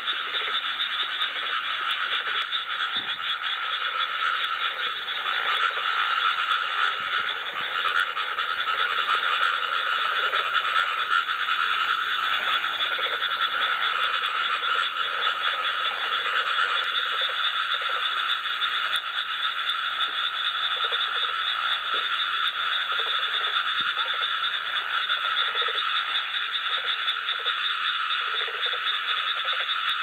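A chorus of many frogs of more than one kind calling together: a dense, continuous high trilling, with separate lower croaks coming and going over it, more of them in the second half.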